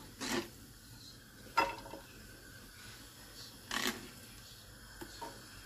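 A hand sweeping diced onion across a plastic chopping board: a few brief scrapes and one sharp click, with quiet rubbing between them.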